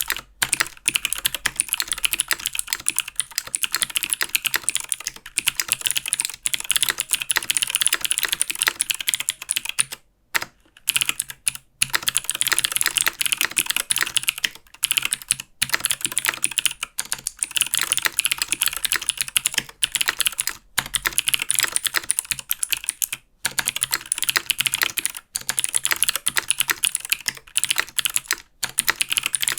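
Continuous fast typing on a mechanical keyboard with Helix Skylar clicky switches: a dense patter of sharp clicks, broken by a few brief pauses, the longest about ten seconds in.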